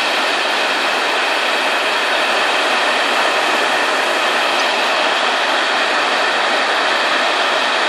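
Torrential rain on a barn roof: a loud, steady rush of noise.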